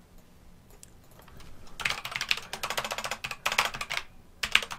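Typing on a computer keyboard: a few faint clicks at first, then rapid keystrokes from about two seconds in, a short pause, and another quick burst near the end.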